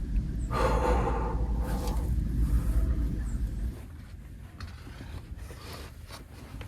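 A person breathing heavily close to the microphone, with a loud exhale or sigh about half a second in. Under it is a low rumble that cuts off abruptly a little past halfway.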